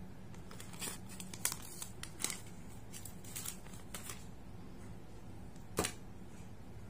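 Paper takeaway bag crinkling in short crackles as a thin, semi-crispy chocolate chip cookie is drawn out of it, then one sharp crack near the end as a piece is snapped out of the cookie.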